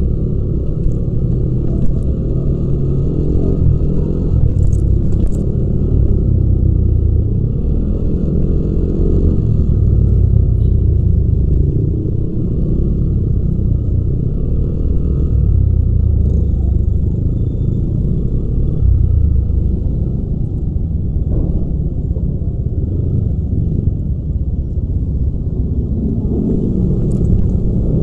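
Yamaha Aerox 155 scooter's liquid-cooled single-cylinder four-stroke engine running as it rides slowly in city traffic: a steady low rumble that swells and eases a little with the throttle.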